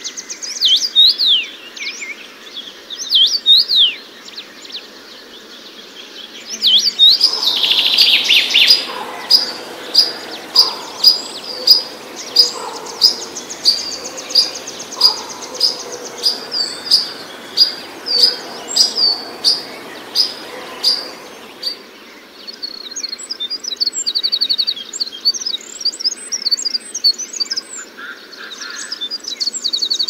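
Songbirds singing in three separate recordings. First come high, gliding whistled phrases, then a single chirp repeated about twice a second for some fifteen seconds, and from about 22 seconds in a fast, high twittering song.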